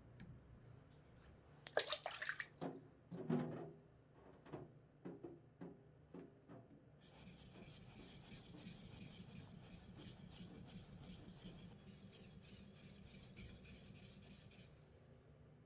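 Yanagiba sashimi knife being stroked back and forth on a wet 1000-grit waterstone, a steady gritty rasping that starts about seven seconds in and stops shortly before the end. Before it come a few sharp knocks and scrapes at the stone.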